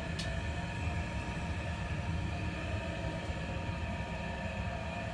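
Ductable AC fan coil unit's indoor blower running with an excessively loud, steady low rumble and hum, the noise the technician goes on to trace to the blower motor's worn bearings.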